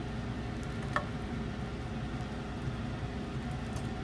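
Faint steady sizzle of melted butter in a non-stick frying pan over a gas flame, with one light tap about a second in.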